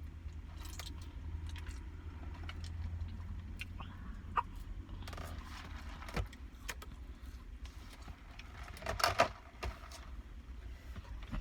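Steady low hum inside a car, with scattered small clicks and rustles of handling and a louder burst of rustling about nine seconds in.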